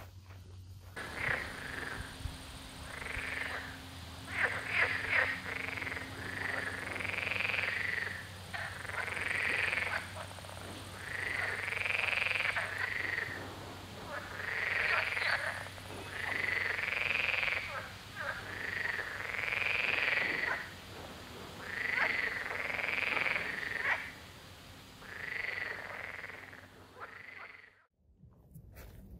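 Frogs croaking, one call about a second long every second or two, over a faint steady low hum; the calls fade out near the end.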